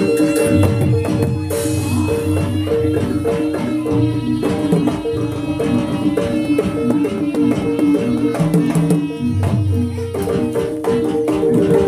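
Live jaranan accompaniment music: hand drums and deep drum strokes under repeating notes from gamelan-style tuned metal percussion, played continuously.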